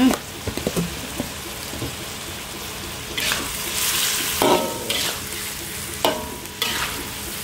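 Metal spatula stirring salted fish and chillies in a wok over a steady sizzle of frying, scraping through the food. The spatula clanks on the wok twice with a short ring, once past halfway and again near the end.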